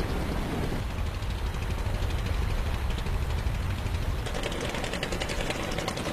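Small boat engine running steadily with a low rumble, a fast, even putter coming through more strongly about four seconds in.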